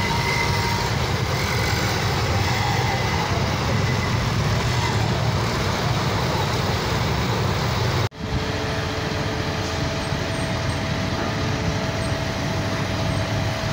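Road traffic noise with heavy truck engines running, a steady dense rumble. The sound cuts out for an instant about eight seconds in and returns with a steady engine drone holding two tones.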